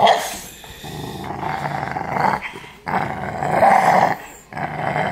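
Puppy growling in long rough runs, about three growls with short breaks between them.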